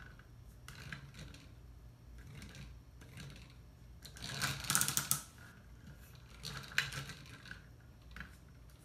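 Plywood gears and parts of a wooden mechanical box model clicking and clattering as it is handled and its gear mechanism worked by hand. A dense run of rapid clicks comes about halfway through, and a shorter one about two seconds later.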